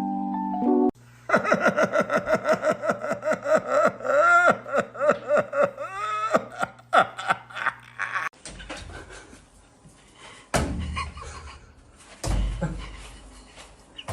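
A person laughing hard in a quick run of falling 'ha' sounds, about four a second, for several seconds, followed by a few knocks and thumps.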